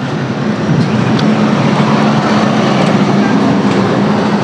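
A heavy road vehicle, a bus or truck, passing close on a highway: a steady low engine drone with tyre and road noise that swells about a second in and holds.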